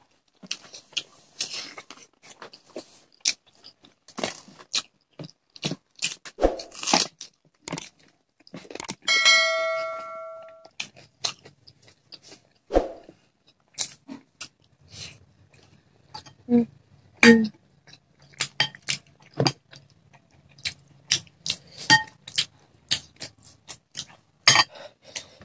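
Close-up eating sounds of hand-eaten rice and curry: scattered chewing, lip smacks and small clicks. About nine seconds in, a bell-like chime rings once for about a second and a half.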